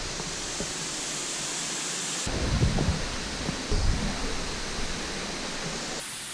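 Steady rush of creek water tumbling over rocks, with a few low thumps on the microphone between about two and four seconds in.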